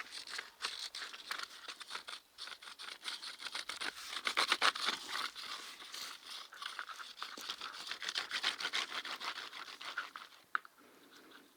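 Rapid back-and-forth scratching of a drawing tool on paper, dense hatching strokes. The strokes stop about ten and a half seconds in, with a short squeak just as they stop.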